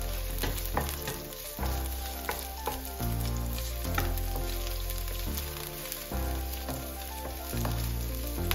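Chopped spring onion and garlic sizzling in hot oil in a non-stick wok, stirred with a wooden utensil that clicks and scrapes against the pan. Soft background music runs underneath.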